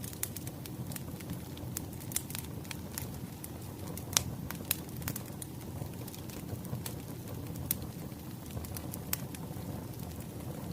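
Burning firewood crackling, with irregular sharp pops over a low steady rumble; the loudest pop comes about four seconds in.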